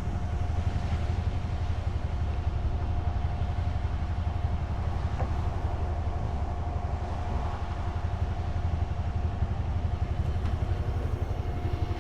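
Sailboat's auxiliary engine running steadily under way while motor sailing, a low even pulse with a faint steady whine over it.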